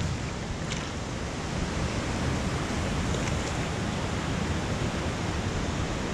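Steady rushing noise with an uneven low rumble of wind on the microphone, and a few faint clicks.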